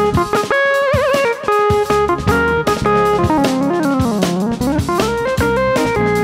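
Live jazz band playing instrumentally: keyboards and synthesizer over electric bass and drum kit. Midway a lead line slides smoothly down in pitch and back up.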